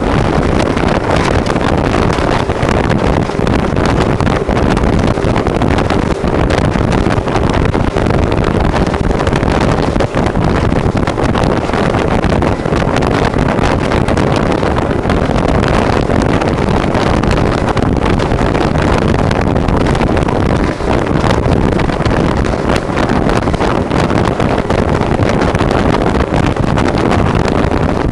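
Motorboat running at speed: engine, hull on the water and wind buffeting the microphone merge into one loud, steady rush.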